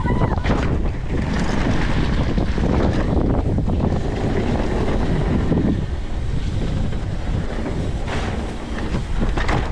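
Wind rushing over the microphone and knobby mountain-bike tyres rolling fast on a dirt trail, with the bike knocking and rattling over bumps. A few louder bursts of noise come near the end.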